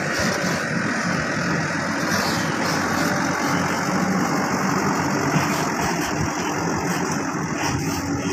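Diesel engine of a loaded dump truck running steadily as it drives slowly past close by.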